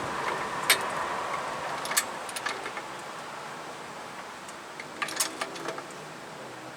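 Sharp metal clicks and clanks from a hydraulic floor jack being pumped up under a ball-joint stud, at uneven intervals with a cluster of clicks near the end, against a steady background hiss.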